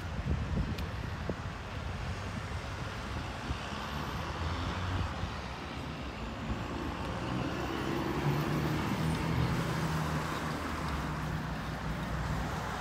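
Road traffic and wind buffeting a phone microphone while riding a bicycle along a path. A vehicle's engine hum swells about eight seconds in and fades again by about eleven seconds.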